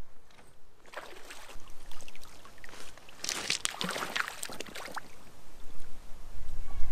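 Water splashing as a hooked barbel thrashes at the surface while it is drawn to the landing net, in a run of splashes that is busiest about three to five seconds in. A low rumble builds near the end.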